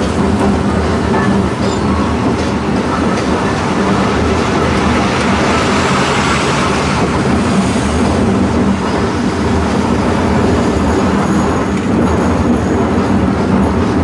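Horse tram's wheels running along street tram rails: a steady rumble and clatter.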